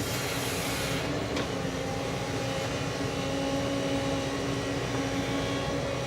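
JCB excavator's diesel engine running steadily under load, a constant drone with a steady whine over it, and a faint knock about a second and a half in.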